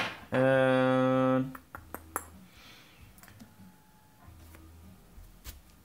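A man's voice holding a flat, level "uhhh" for about a second, followed by a few faint light clicks of a plastic vertebra model being handled.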